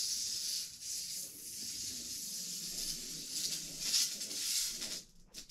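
Clear protective plastic film being peeled off a white lightsaber blade: a long rustling hiss that swells about four seconds in and stops about five seconds in.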